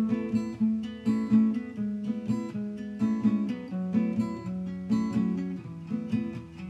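Background music on acoustic guitar, plucked and strummed in a steady, gentle rhythm.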